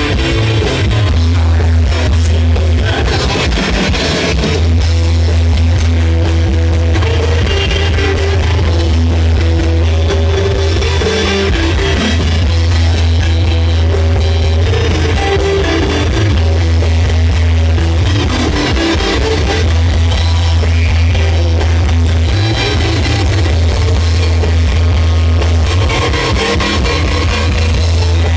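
Live blues-rock band playing an instrumental passage: electric guitars, bass guitar and drums. The loud, boomy low end comes from the poor recording.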